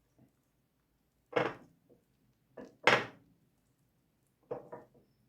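Cooking utensils knocking and clinking against a pan and bowl while a rolled omelette is being made: a few separate sharp knocks, the loudest about three seconds in, then a quick cluster of clinks near the end.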